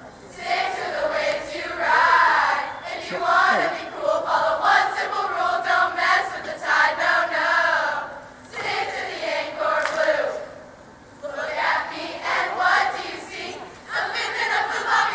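A large group of girls chanting a cheer in unison, in voiced phrases with brief lulls between lines.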